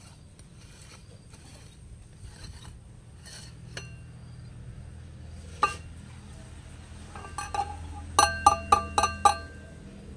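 Stainless-steel lid of an electric grinder clanks once as it comes off the bowl. A couple of seconds later it clinks five times in quick succession against the steel bowl, each strike ringing briefly.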